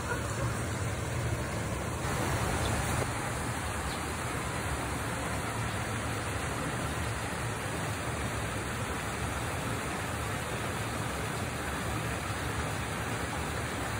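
A stream running over rocks, a steady even rush of water that drops slightly in level about three seconds in.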